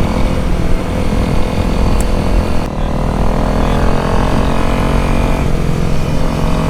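Honda CRF250L single-cylinder engine running under way through a Danmoto carbon exhaust, with wind rushing over the helmet microphone. The engine eases off briefly about a third of the way in, then its pitch climbs steadily for a couple of seconds as the bike accelerates.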